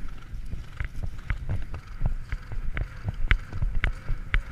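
Grey horse galloping on grass turf, heard from the saddle: dull hoofbeats and a low rumble, with a sharp click about twice a second in time with the stride.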